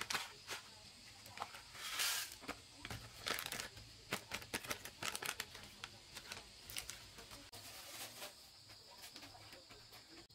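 Foil seed packets crinkling and tearing as they are handled, with a longer tearing rasp about two seconds in. Small seeds click as they drop into a plastic tub.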